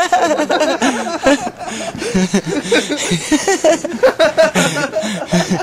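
People laughing, a run of short chuckling bursts.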